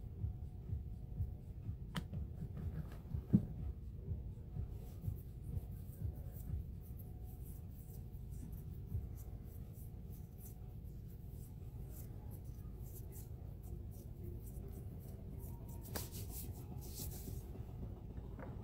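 Quiet handling sounds of hands working at a manicure desk: light rubbing and small taps, with a sharp click about three seconds in and a short rustle near the end.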